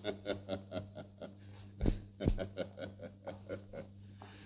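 A man laughing in a run of short, quick 'ha-ha' pulses, broken about two seconds in by two low thumps.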